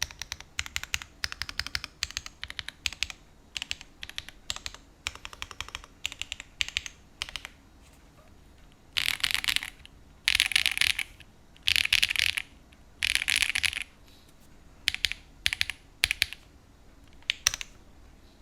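Typing on a Tofu60 2.0 mechanical keyboard with linear switches. Steady typing is followed by four rapid runs of keystrokes, each about a second long, then a few single key presses near the end.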